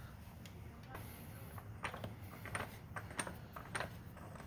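A few light, irregular metal clicks and taps, mostly in the second half, from hands working the 32 mm socket on a manual transmission's countershaft bolt.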